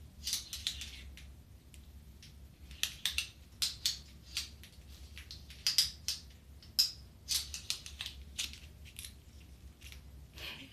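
Chewing and crunching close to the microphone: many sharp, irregular crunches in uneven clusters, over a faint steady low hum.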